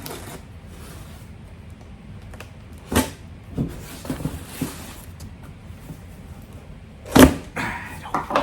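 Package being unwrapped by hand: paper packing rustled and pulled off, with a few sharp crinkles or knocks, the loudest about three and seven seconds in.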